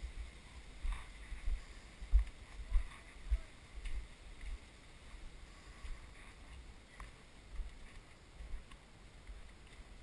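Footsteps of the camera wearer walking, heard as dull low thuds through a body-worn action camera, roughly one or two a second.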